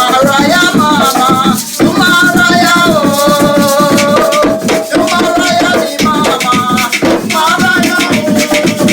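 Singing in long, wavering held notes over fast, steady shaker rattles and drumming, with short breaks between sung phrases.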